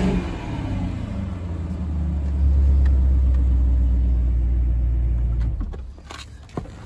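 Cadillac engine running at standstill: a rev dies down into a steady, deep low idle rumble, which drops away about five and a half seconds in.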